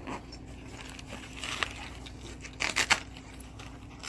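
Rustling and a few sharp clicks from handling the fishing rod set and its carry bag, with a quick cluster of clicks near the three-second mark, over a faint steady hum.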